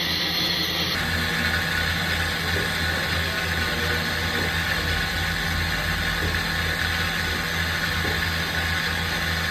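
Okuma LB3000EXII-MYW CNC turning center running: a steady mechanical hum and whir with no pauses.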